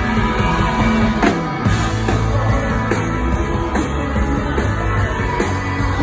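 A live rock band playing, with a woman singing lead over electric guitar.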